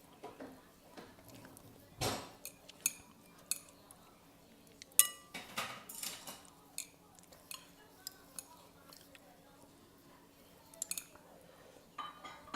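Eating utensils clinking and scraping against a dish of buldak ramen in irregular clicks, with one ringing clink about five seconds in.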